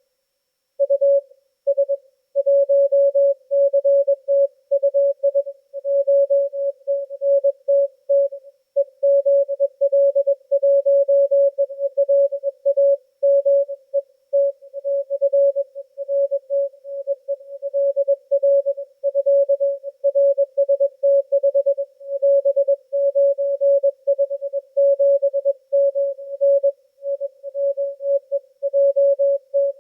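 Morse code (CW) signal received on a Yaesu FTdx10 transceiver: a single tone of about 600 Hz keyed on and off in a continuous run of dots and dashes, with the background nearly silent between the elements.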